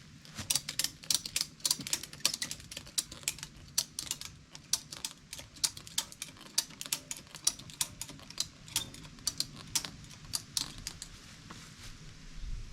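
Ratchet strap being cranked tight, its ratchet mechanism clicking rapidly and unevenly, several clicks a second.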